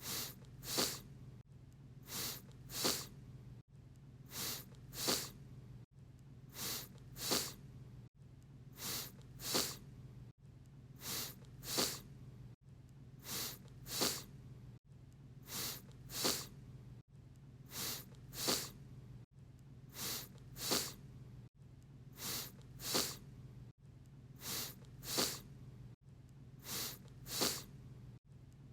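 A person sniffling: two quick sniffs, the second louder, repeated over and over about every two seconds, over a steady low hum.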